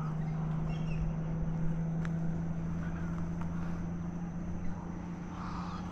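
A steady, low mechanical hum, like a motor or engine running nearby, with a few faint bird chirps over it.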